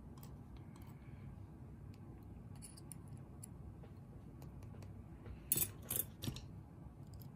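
Small metal lock pins and tools being handled, giving light clicks and clinks, with a few sharper clicks about five and a half seconds in, over a faint steady low hum.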